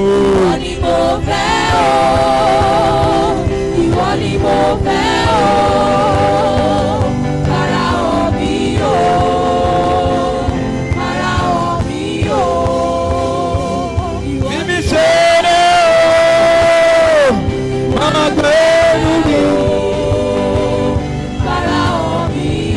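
Gospel worship music: a voice sings drawn-out phrases over a continuous instrumental backing, holding one long note about fifteen seconds in.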